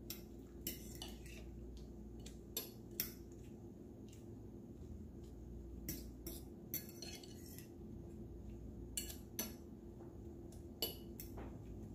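Metal fork beating eggs with chopped tomato and onion leeks in a ceramic bowl, clinking against the bowl in irregular taps.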